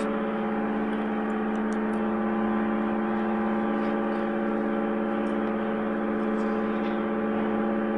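Steady electric hum from a running machine, several even tones held without change, with a few faint ticks.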